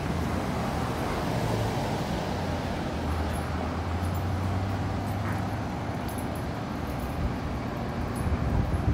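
Low steady hum of a light-rail train standing at the platform, over a bed of street traffic noise; the hum weakens a little over halfway through.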